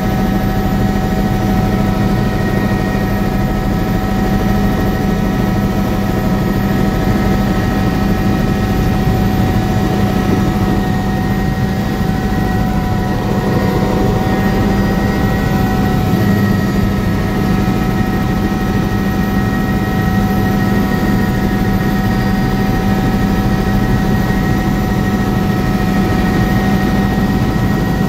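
Light aircraft's engine and rotor or propeller droning steadily, heard inside the cabin: a loud, unchanging low hum with a few steady higher tones over it.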